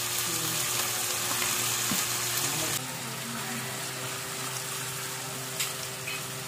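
Ground pork sizzling in hot oil with chopped onion and garlic in a nonstick wok, stirred with a silicone spatula. The sizzle eases off a little about three seconds in.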